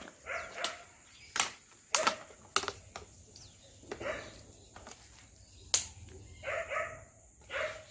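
Short, repeated animal calls, with sharp clicks between them. The loudest clicks come about two seconds in and just before the six-second mark.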